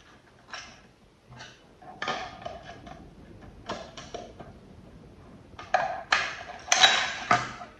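Irregular clinks and knocks of small hard objects being handled and set down. There are scattered single knocks at first and a quick run of louder ones near the end.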